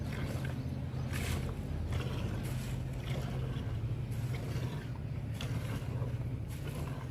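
A steady low mechanical hum, like a motor or engine running, with brief hissy rustling noises a few times.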